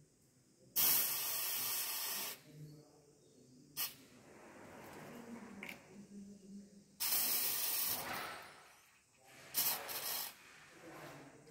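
Aerosol can of dye penetrant developer spraying onto a steel test piece in three bursts of hiss: about a second in, about seven seconds in, and a shorter spurt near the end. A single sharp click falls between the first two bursts. This is the developer coat, the last step of a dye penetrant crack test.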